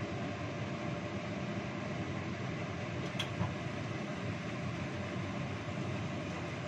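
Kitchen cooker-hood extractor fan running, a steady whooshing noise with a faint hum, over spice paste frying in a wok. A single brief click about three seconds in.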